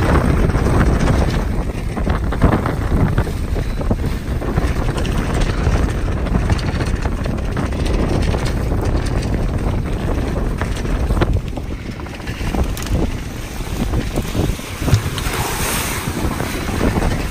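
Wind buffeting the microphone over water rushing and splashing along the hull of a sailing proa heeled over at speed. There is a louder hiss of spray breaking over the hull near the end.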